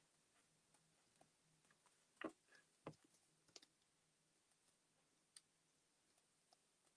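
Near silence with a few faint clicks and taps from handling collage paper and a glue stick, the two loudest a little over two and about three seconds in.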